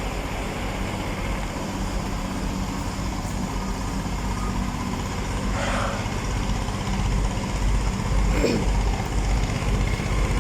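A large vehicle engine idling with a steady low drone that grows slightly louder over the stretch, and a short noisy burst about six seconds in.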